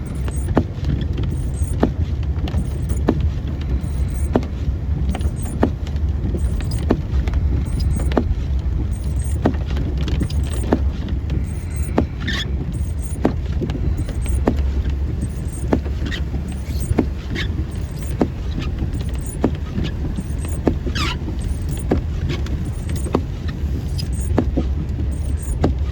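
Car driving, heard from inside the cabin: a steady low road and engine rumble, with a regular light click a little more than once a second and a couple of short falling squeaks.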